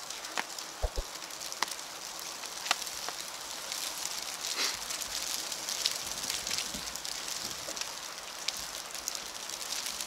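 Wet snow falling onto a wet street: a steady hiss with many scattered small ticks of flakes and drops landing.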